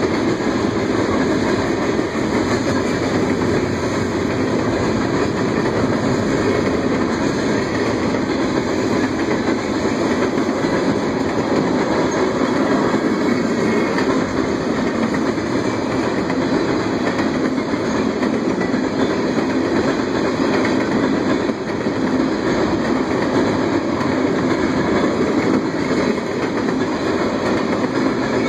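Freight train of tank cars rolling steadily past at speed, a continuous rumble and clatter of steel wheels over the rail joints.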